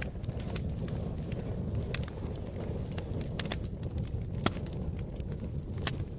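Campfire crackling: irregular sharp pops and snaps, a dozen or so, over a steady low rushing.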